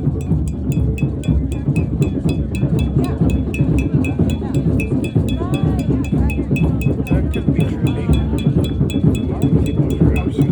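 Drum circle: many hand drums playing a dense, continuous rhythm, with a sharp metallic tick keeping a steady beat about five times a second. Voices call out here and there over the drumming.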